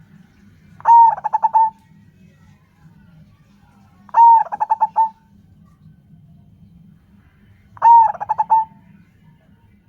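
Zebra dove (perkutut) cooing: three song phrases spaced about three and a half seconds apart, each a long opening note followed by a quick run of about five short notes.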